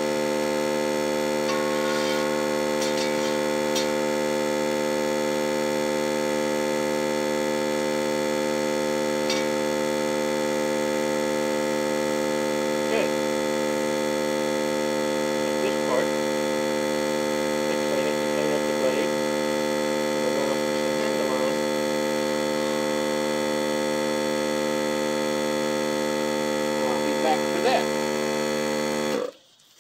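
Steady electrical hum with many evenly spaced overtones, cutting off suddenly near the end.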